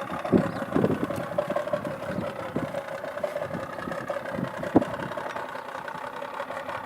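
Boat engine idling steadily, with scattered short knocks; the sharpest comes about five seconds in.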